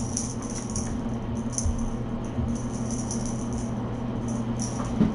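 Light, high jingling rattle that comes and goes, as from a small cat toy, over a steady low electrical hum.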